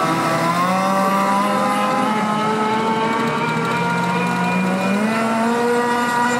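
A radio-controlled racing powerboat's combustion engine running at high revs, a continuous whine that rises and falls in pitch as the throttle changes.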